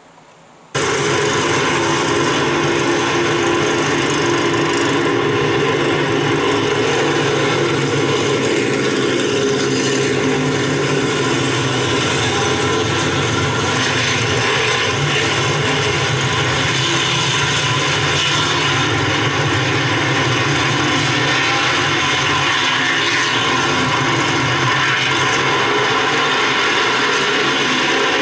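Engines of a pack of stock cars racing, a steady, dense drone that starts abruptly just under a second in.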